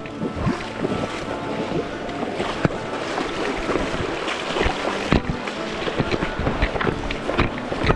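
Rushing water of a stream rapid, a steady hiss broken by frequent short, sharp splashes and knocks.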